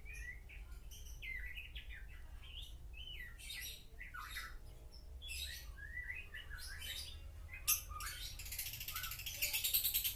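Lovebird singing: scattered short chirps and rising whistles, breaking about eight and a half seconds in into a fast, continuous, high chattering trill, the long unbroken 'konslet' song.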